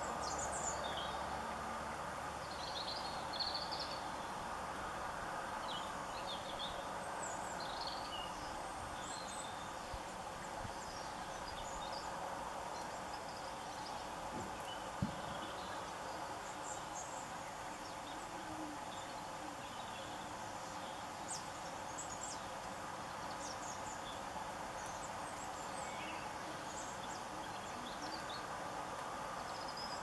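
Small garden birds giving short, high chirps and calls, scattered throughout over a steady background hiss; a single sharp click about fifteen seconds in.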